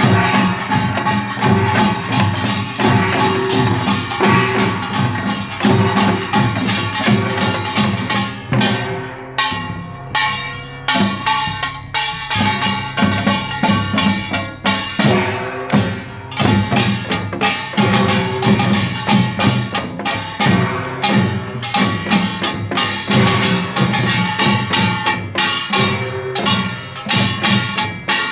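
Korean pungmul percussion band playing, with gongs and drums beating fast, dense rhythms. The beating thins out from about a third of the way in to about halfway, where a low ringing tone holds, then picks up again.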